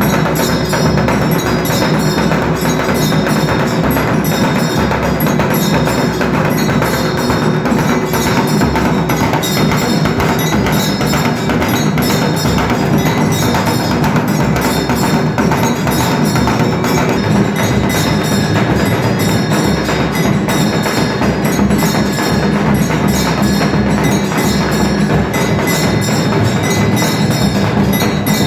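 Dhol drumming during an aarti, with continuous fast beating mixed with metallic bell ringing and no pauses.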